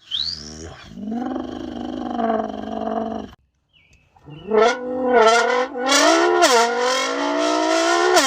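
A man imitating a diesel engine with his voice: a brief rising whistle, a held droning note, then after a short pause a rising growl whose pitch dips and climbs again a couple of times.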